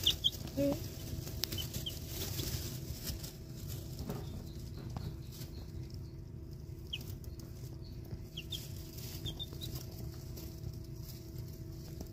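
Young chicks in a brooder giving short, faint high peeps every so often, with soft rustling and scratching in wood shavings. A steady low hum runs underneath.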